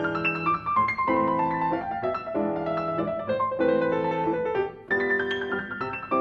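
Grand piano played solo: phrases of quickly repeated chords, with a short break in the sound about five seconds in before the next phrase starts.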